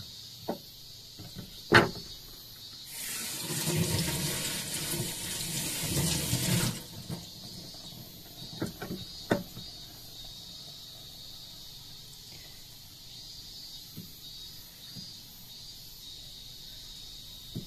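Water running from a tap for about four seconds, starting about three seconds in and cutting off suddenly. A sharp knock comes just before it, and a few lighter knocks follow a couple of seconds after the water stops.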